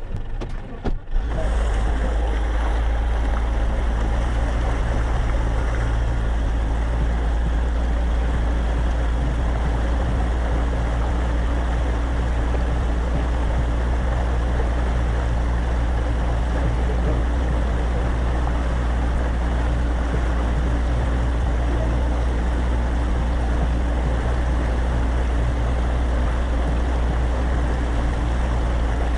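Boat motor running at a steady speed under a wash of water and wind noise, setting in abruptly about a second in.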